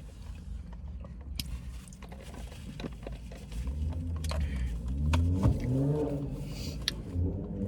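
A motor vehicle's low engine rumble, growing louder about halfway through with its pitch rising and falling, with scattered sharp clicks over it.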